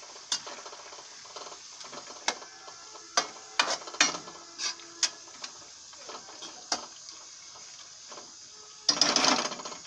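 Slotted metal spatula scraping and clinking against a steel kadhai as vegetables are stirred, over a steady sizzle. A louder clatter comes near the end.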